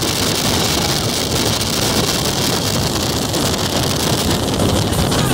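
Steady wind buffeting on the microphone over the running noise of a motorboat under way, heard from aboard the moving boat.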